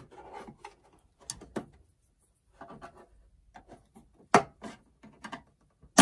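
Scattered plastic clicks and scraping as a screwdriver and pry tool work around the seam of an HP Pavilion 23 all-in-one's plastic back case, its clips cracking loose. The sharpest click comes about four and a half seconds in.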